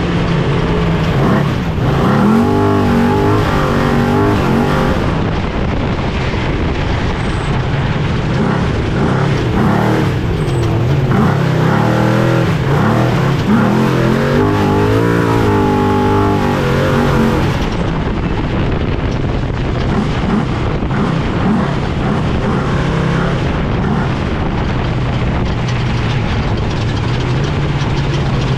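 Off-road trophy truck racing, heard from inside the truck: the engine runs hard, its pitch sweeping up and down about two seconds in and again from about eleven to seventeen seconds, over a steady rushing noise.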